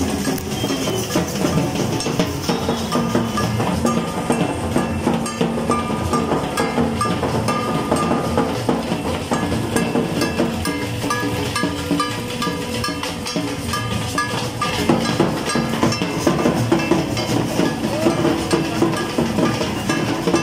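Loud procession music with drums and held melodic notes, over a dense din of crowd noise and a running engine.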